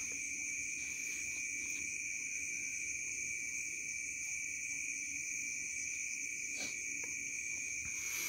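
Chorus of night insects trilling steadily at several high pitches.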